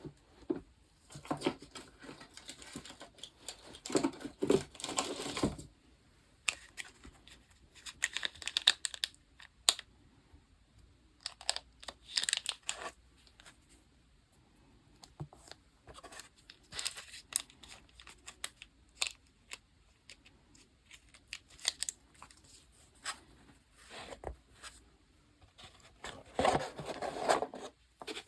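Paper and sticker handling while decorating a diary: irregular bursts of tearing, crinkling and rustling, with small sharp clicks and taps between them.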